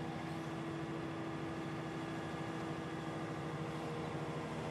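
Volvo C-series crawler excavator's diesel engine running steadily, a constant low drone with a steady hum in it.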